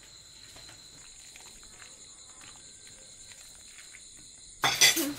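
Quiet background with a faint steady high-pitched whine and a few soft ticks. Near the end, a sudden loud burst of clattering noise.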